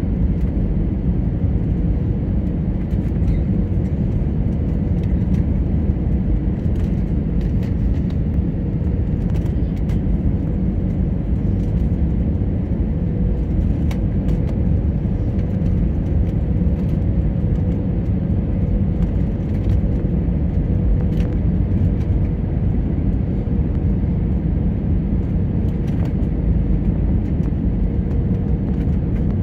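Steady cabin noise inside an Airbus A320neo on landing approach: the hum of its Pratt & Whitney PW1100G geared turbofans and airflow over the wing with flaps extended. A thin steady tone rides in the middle of the noise, drops out about two-thirds of the way through and returns near the end.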